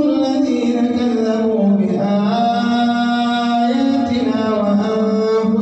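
A man chanting Quran recitation in a slow, melodic style. He holds long notes and glides slowly between pitches.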